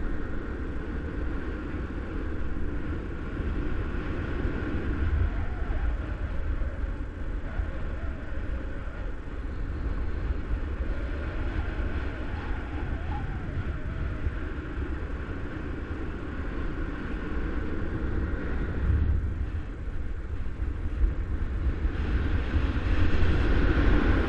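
Wind rushing over the microphone of a camera mounted on a paraglider in flight: a steady low buffeting that grows louder near the end.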